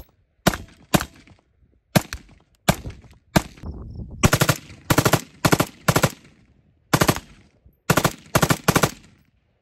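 Short-barrelled AR-15-style carbine firing rapid shots: singles and pairs at first, then a fast string about halfway through, and more pairs and short strings near the end.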